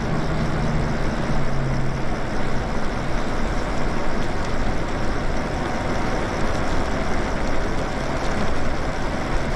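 Lyric Graffiti e-bike being ridden along a wet street: a steady rush of wind on the microphone mixed with tyre noise on the wet pavement.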